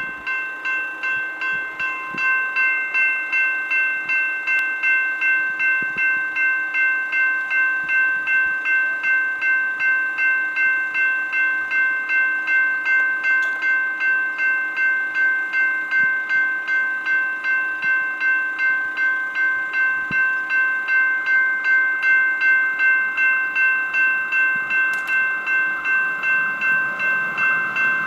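Railway level-crossing warning bell ringing steadily at about two strikes a second, the signal that a train is approaching. A rising rumble begins to build under it near the end.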